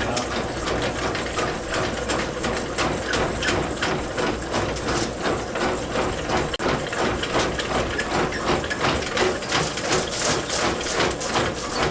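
A machine running steadily with a rhythmic clatter, several clicks a second over a constant mechanical noise.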